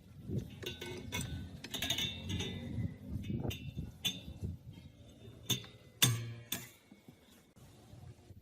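Metal parts and tools clinking and knocking as they are handled, in a run of irregular light strikes, with one louder ringing knock about six seconds in.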